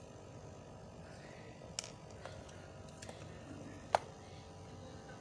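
Small clicks and light knocks of a heat gun's plastic housing and metal barrel being handled as it is taken apart, with one sharper, ringing knock about four seconds in, over low steady background noise.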